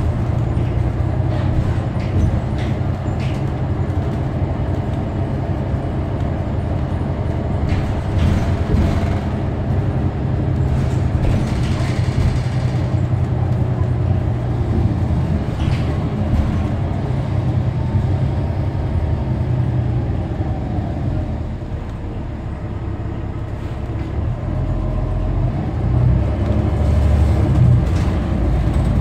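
2013 New Flyer XD40 Xcelsior city bus running, a steady low engine drone with a few rattles and clicks. The drone eases a little past the middle and grows louder near the end.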